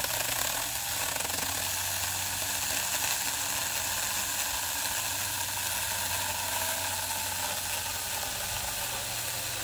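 Saker mini 4-inch 20V cordless electric chainsaw running steadily as its chain cuts through a pressure-treated 2x8 board.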